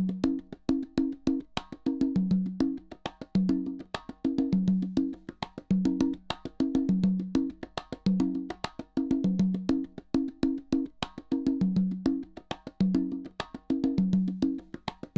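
Loop of pitched wooden percussion, wood-block-like, with sharp clicks and alternating low notes in a short rhythmic phrase that repeats about every two seconds. It is a test signal from a surround-setup disc for matching the levels of the rear left and rear right surround speakers.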